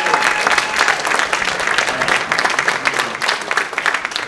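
Audience applauding: many hands clapping densely, easing off slightly near the end.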